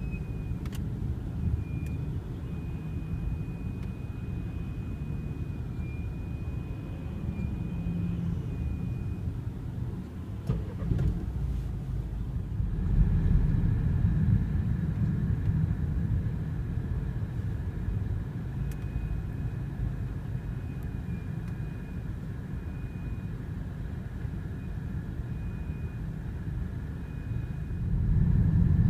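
BMW F30 320i brakes squealing: a thin, high, steady squeal held for about nine seconds, then again for several seconds later on, over the low rumble of the rolling car.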